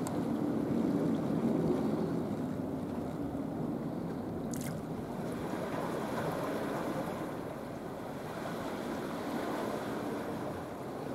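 Steady low rushing seaside ambience of wind on the microphone and lapping water, with one brief sharp click about four and a half seconds in.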